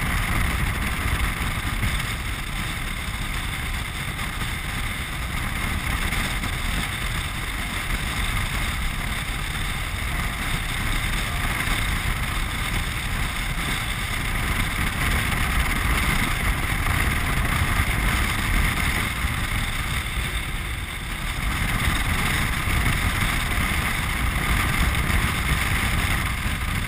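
Land yacht running fast across a hard dry lake bed: steady wind rushing over the camera microphone over a low rumble from the wheels rolling on the playa, with a short lull about three-quarters through.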